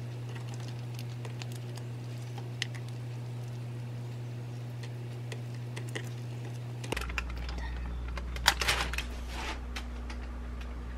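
Light taps and clicks of a fork and fingers pressing fried rice and wrapping it in rice paper on a wooden cutting board, over a steady low hum. About seven seconds in, a short run of louder clatter, sharpest at about eight and a half seconds, as a parchment-lined baking tray is handled at the oven.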